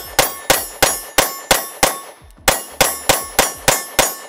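Compact semi-automatic pistol fired in rapid strings, about three shots a second, with a short pause about two seconds in. Each shot is followed by a brief metallic ring.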